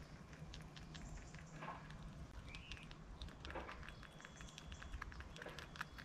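Grey squirrel eating nuts at a feeder: faint, quick clicks and crunches of chewing and handling the nuts.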